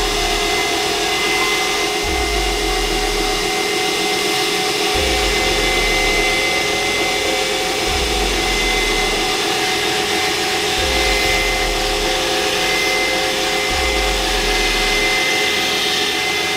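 Belt grinder with a small contact wheel grinding fullers into a steel falchion blade: a steady, loud grinding hiss from the belt on the steel, over the machine's running hum.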